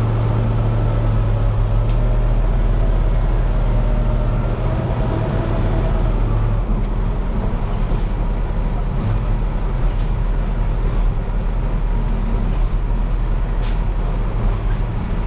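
Semi truck's diesel engine running at low speed with a steady low hum while the tractor-trailer is maneuvered toward a loading dock. A few faint clicks sound in the second half.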